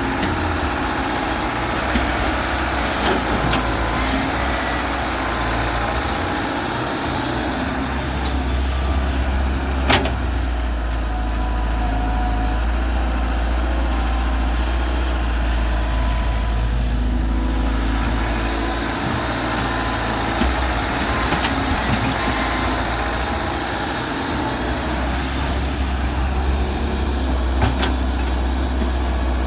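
Hyundai excavator's diesel engine working, a steady low drone that eases off and builds again every several seconds as the machine digs and loads. A few sharp knocks come through, the clearest about ten seconds in.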